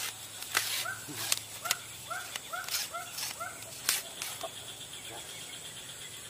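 An animal calling a run of about eight short, arched notes, roughly three a second, which stops about three and a half seconds in. A few sharp clicks fall among the calls.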